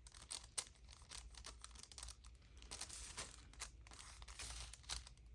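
Faint, irregular rustling and crinkling of paper being handled, with small taps and clicks.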